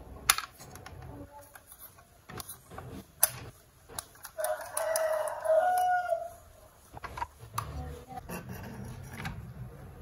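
Light clicks and knocks of a small plastic toy box truck being handled, its rear doors opened, and the truck set against wooden blocks. About midway comes a single long bird-like call, held for about two seconds.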